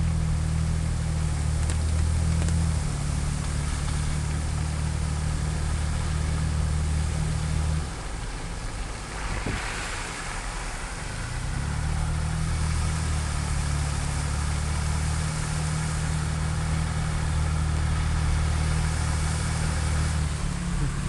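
Car engine running steadily. It eases off about eight seconds in, with a brief hiss, and picks up again around twelve seconds.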